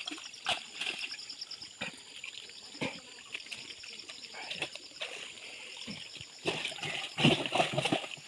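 Pond water splashing and sloshing in irregular bursts as a fish thrashes in a landing net lifted from shallow muddy water, with a louder run of splashes near the end.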